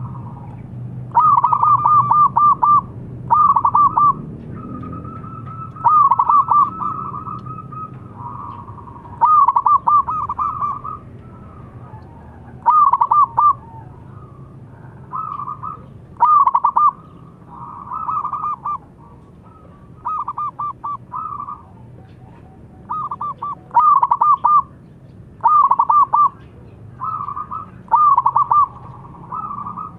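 Zebra doves (perkutut) cooing: repeated phrases of quick stuttering notes, one every second or two, some loud and some fainter as birds answer each other.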